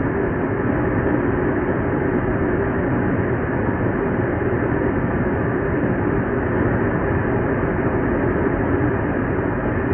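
Steady, unchanging roar of an aircraft in flight: engine and airflow noise with no change in pitch or level.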